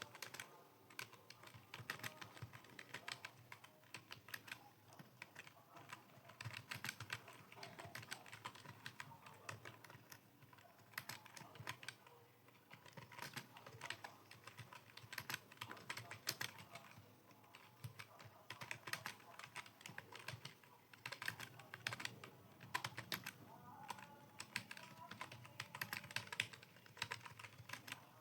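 Computer keyboard being typed on continuously, a fast irregular patter of key clicks with short pauses between runs.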